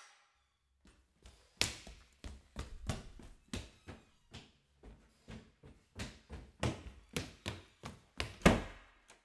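A steady run of short, hard knocks, about three a second, with one louder knock near the end.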